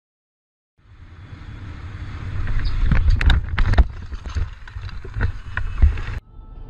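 A car crash heard from inside the vehicle: a low road-and-wind rumble builds, then several hard impacts and crunches come about three seconds in, with a few more knocks later, before the sound cuts off abruptly.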